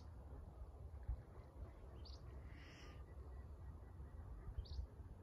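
A few short, high bird chirps, about two and four and a half seconds in, over a faint low rumble.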